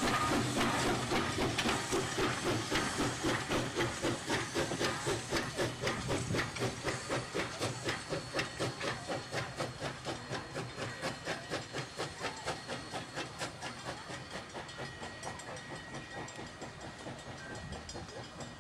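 Aberdeen & Rockfish #40, a 2-6-2 steam locomotive, working a passenger train, its exhaust chuffing in an even rhythm that slowly fades as it draws away.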